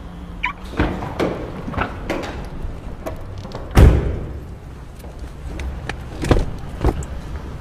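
Irregular thumps and knocks inside a car as people shift and bump against the seats and body, the heaviest about four seconds in.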